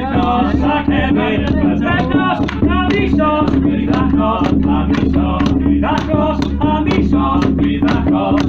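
Voices singing together over a steady droning instrument, with a regular percussive beat.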